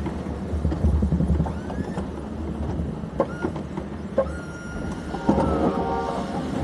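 Ford F350 pickup's engine running steadily as the plow truck manoeuvres, with a few short higher whines and clicks over the low rumble.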